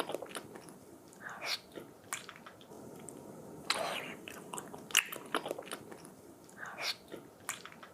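Close-up chewing and biting of a taco: wet mouth sounds with several sharp, crunchy clicks spread irregularly through.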